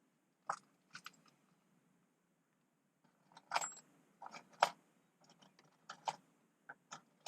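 Faint, scattered small clicks and light rattles of handling, like keys or small hard objects being moved. The loudest cluster comes a little past the middle.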